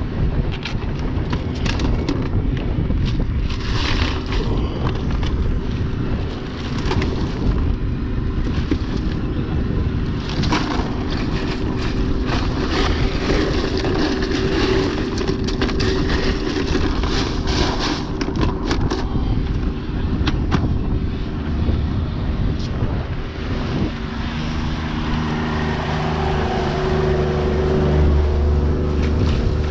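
90 hp Yamaha outboard motor running steadily while trolling, its new lower unit in its break-in period, with gusts of wind buffeting the microphone. The motor's hum comes through more clearly in the last few seconds.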